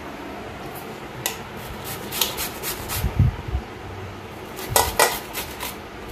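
Raw mango being grated on a handheld stainless-steel grater over a steel plate: scraping strokes, with the metal grater clinking and knocking against the plate, loudest about two seconds in and again near five seconds. A dull thump comes a little after three seconds.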